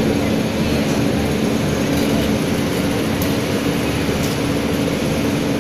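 Ahmedabad–Mumbai Duronto Express coaches rolling past along the platform, a steady running noise of wheels on rail with a steady low hum throughout.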